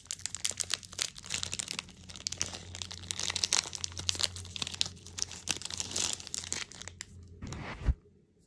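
A plastic cookie wrapper crinkling and tearing as it is pulled open by hand, in a dense run of crackles that stops abruptly near the end.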